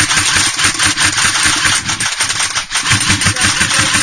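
Airsoft electric gun firing full auto: a fast, steady mechanical rattle of the gearbox cycling shot after shot.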